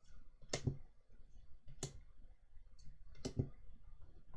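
Pokémon trading cards being handled, giving three sharp clicks spaced about a second and a half apart with a few fainter ticks between them.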